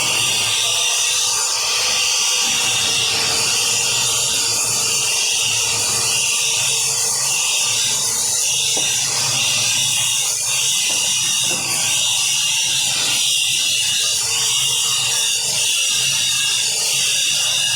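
Electric arc welding: a steady crackling hiss from the arc, with a low electrical hum underneath.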